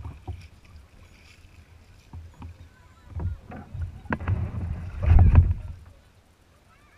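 Knocks and a scraping rumble through a plastic kayak's hull as the paddler climbs out onto a sand beach, loudest about five seconds in, then dying away.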